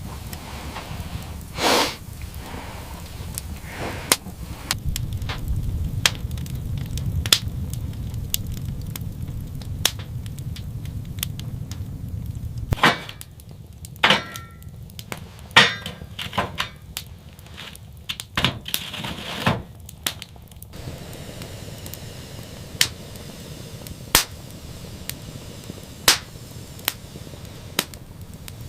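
Irregular sharp cracks and knocks over a low rumble, the rumble dropping away about halfway through.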